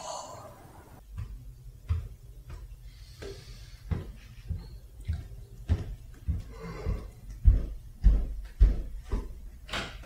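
A run of dull thumps, roughly one or two a second and getting louder toward the end, with a man's drawn-out yawn in the middle.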